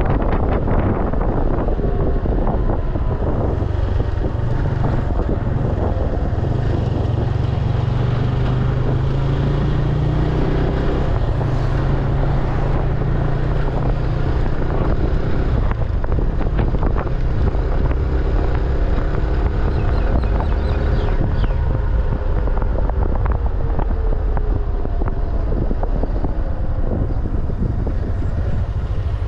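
A small engine runs steadily while moving, its pitch slowly rising and falling, with heavy wind noise on the microphone.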